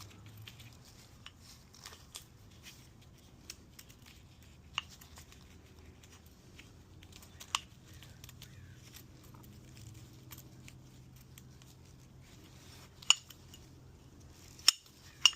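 Piston rings being worked onto a piston by hand: light scattered metallic clicks and handling noise, with three sharp clicks near the end as the ring seats.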